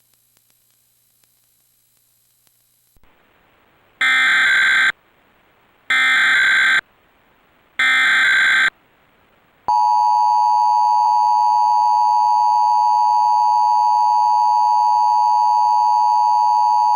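Emergency Alert System tones: three short bursts of the rapid warbling SAME header data, about a second each and two seconds apart, starting about four seconds in, then the steady two-tone attention signal from about ten seconds in. This sequence opens an EAS alert, here a required monthly test.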